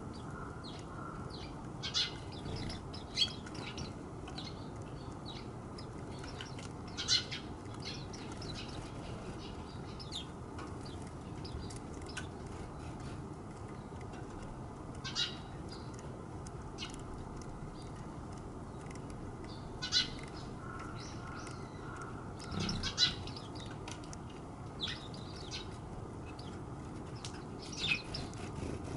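Quiet garden ambience with a steady hiss, broken every few seconds by short, high chirps of small birds.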